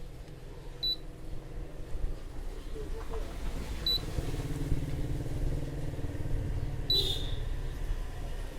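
Induction cooker's buzzer giving a short high beep three times, about every three seconds, over a steady low hum: the cooker repeatedly checking for a pot on the coil and finding no vessel.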